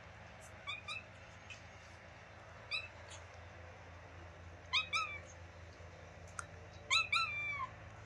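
Tabby-and-white kitten making short, high-pitched chirping calls, the sweet 'beeping' sounds it makes all the time. They come in four quick pairs, and the last one is drawn out and falls in pitch.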